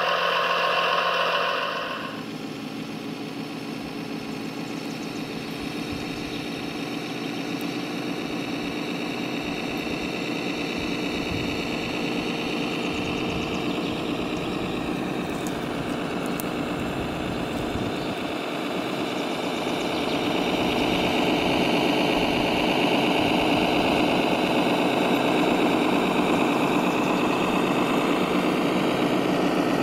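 Simulated diesel truck engine sound from RC model trucks' sound modules, running steadily and getting louder about two-thirds of the way through.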